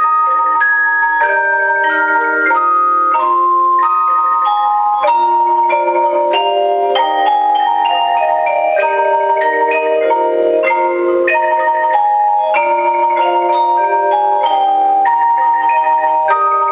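Tuned mallet percussion playing a slow melody. The struck notes ring on for a second or more and overlap into chime-like chords.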